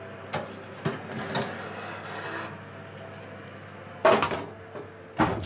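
Metal baking tray pulled out along an oven's shelf rails: a few light clicks and scraping, then a loud metallic clank about four seconds in and another near the end.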